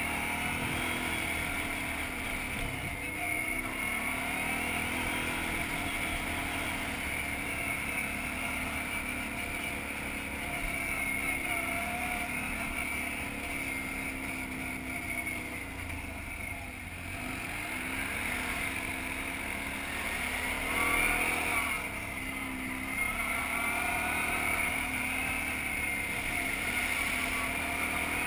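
ATV engine running under way, its pitch rising and falling as the throttle is worked, loudest about 21 seconds in. Wind rushes over the microphone.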